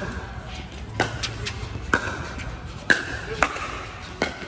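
Pickleball rally: paddles striking the plastic ball in sharp pops about once a second, with a few lighter ball bounces between them.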